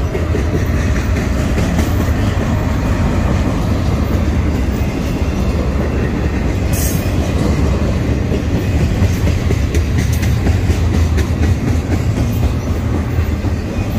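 Double-stack intermodal train of container well cars rolling past close by: a loud, steady rumble of steel wheels on the rails. A brief sharp high-pitched sound cuts through about seven seconds in.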